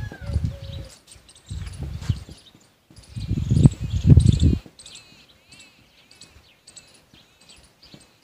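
Felt-tip marker writing on a whiteboard: bursts of pen strokes pressing and scraping on the board, strongest in the first half, then lighter squeaky strokes.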